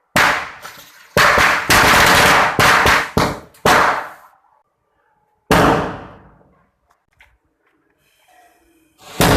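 Diwali firecrackers going off in loud bangs: a run of them close together in the first four seconds, another about five and a half seconds in, and a last one near the end. Each bang trails off briefly.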